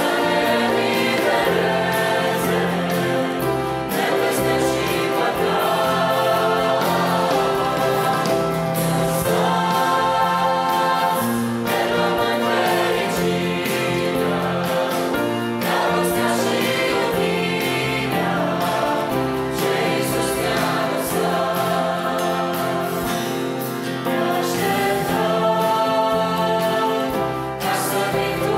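Mixed youth choir singing a Christian song in parts, held chords moving step by step over steady instrumental accompaniment.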